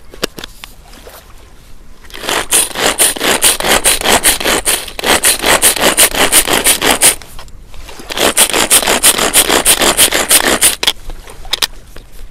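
Blender chopping corn kernels into a mush, in two spells of about five and three seconds, with a fast, even scraping rattle.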